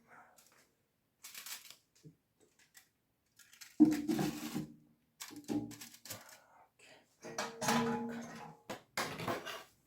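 Intermittent kitchen handling sounds: utensils and bowls knocking and clinking in short bursts with pauses between, the loudest about four seconds in, as ingredients for a steamed-egg dish are prepared.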